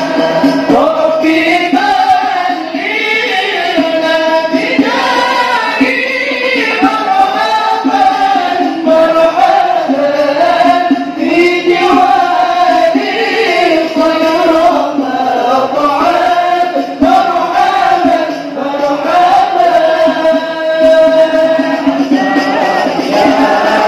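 Islamic devotional chanting: a group of voices sings a sholawat melody together in a continuous, flowing line that rises and falls.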